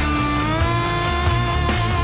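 Rock backing music: a lead line holding long notes, one bending up in pitch about half a second in, over a heavy bass line.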